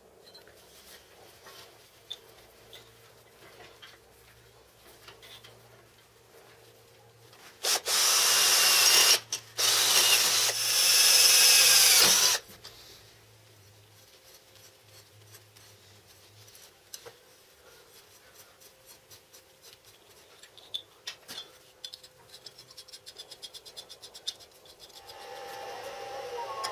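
A handheld power tool working metal in three loud bursts about eight to twelve seconds in, with a high whine that shifts in pitch. Around it come light clicks and taps of metal parts being handled, and near the end a steady hiss starts.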